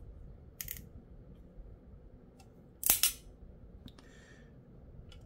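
Light clicks as a 1:64 scale diecast truck-and-car-hauler model is handled, with one sharper click about three seconds in and a short scrape about a second later. Fingers are working at a snap-off piece that is stuck on.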